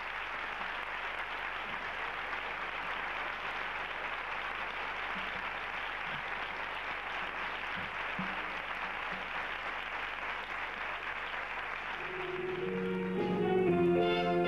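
Audience applauding steadily as a singer is introduced. Near the end an instrumental introduction starts up, with sustained pitched notes under the clapping.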